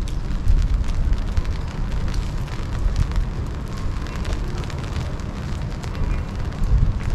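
Steady rain falling, with many small ticks of drops over a low rumble.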